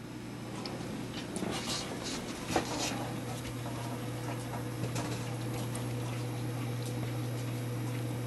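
Workshop room tone: a steady low hum, with scattered light clicks and rustles of handling noise over the first three seconds or so.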